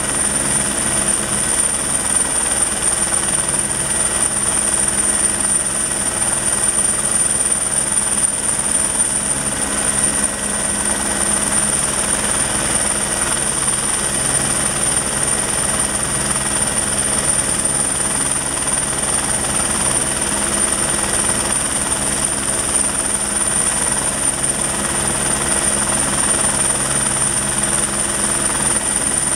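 Helicopter holding a hover: a steady high turbine whine over the fast, low beat of the main rotor, unchanging in level.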